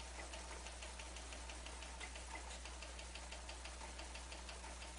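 Faint, rapid, evenly spaced ticking, several ticks a second, over a steady low hum.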